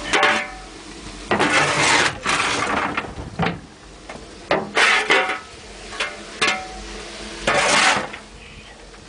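Hand-firing a narrow-gauge steam locomotive: a steel coal shovel scrapes up coal and pitches it into the firebox. It is heard as irregular rushes of scraping, each a second or less long, with a few sharp metal clanks in between.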